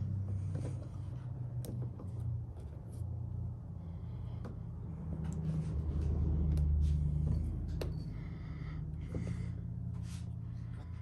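Small clicks and taps of an Allen wrench and screws being worked out of a plastic kayak seat base, over a steady low rumble.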